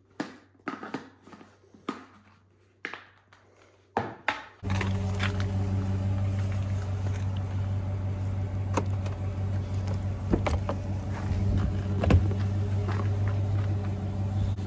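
A few light plastic knocks and clicks as a shaker bottle is capped and handled. About four and a half seconds in, the sound changes to the steady low hum of a running vehicle heard from inside the cab, with occasional clicks and knocks.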